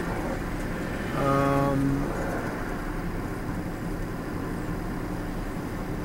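Steady low rumble of a car idling, heard from inside the cabin while stopped. About a second in, a person's voice holds a short hesitant 'uhh' for under a second.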